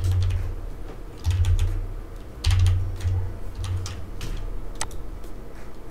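Computer keyboard keys typed in a handful of separate sharp clicks, with several low dull thumps underneath, the loudest about halfway through.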